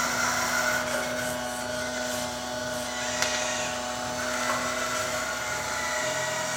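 Radio-controlled model construction machinery running: a steady motor whine made of several held tones over a noisy hiss, with one sharp click about three seconds in.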